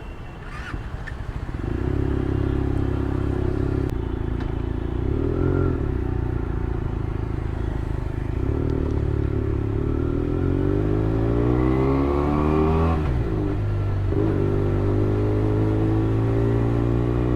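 Benelli 302R's 300 cc parallel-twin engine under way: a steady run, then a long rise in pitch under acceleration, a sudden drop at an upshift about 13 seconds in, and a steady cruise afterwards.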